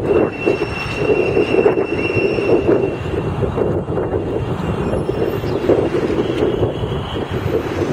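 Street traffic with a double-decker tour bus engine driving past close by, a steady rumble. A thin high whine runs over it for the first few seconds.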